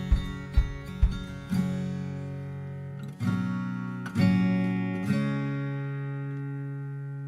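Background music: acoustic guitar, a few quick strums, then single chords struck about a second apart and left to ring.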